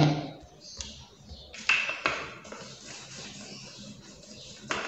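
Rolling pin rolling out folded dough on a board, with a few short knocks and clicks against the board.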